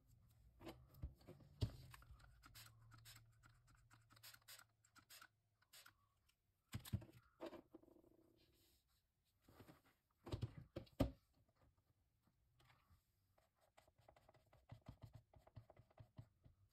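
Faint handling sounds of a painting board being shifted on a wooden table, with a few light knocks, the loudest about seven and eleven seconds in. Near the end comes a run of quick scratchy strokes as a plastic scraper is dragged across the thick, textured acrylic paint.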